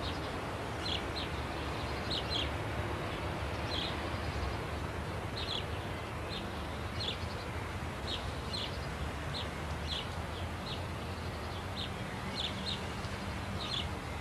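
Small birds chirping: short, high chirps come every second or so, often in quick pairs or threes, over a steady low background rumble.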